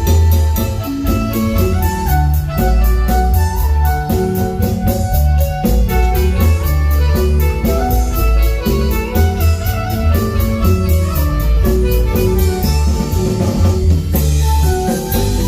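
Marimba band playing: quick runs of struck marimba notes over a heavy bass line and a steady drum beat.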